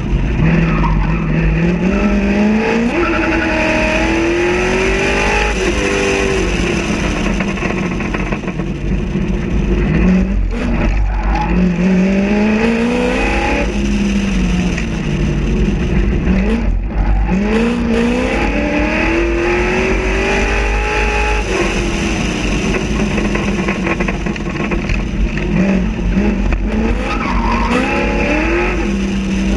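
Chevrolet Corvette Z06's V8 accelerating hard through the gears, its pitch climbing again and again and dropping back at each shift or lift off the throttle. Heavy wind rush on the outside-mounted camera runs beneath it.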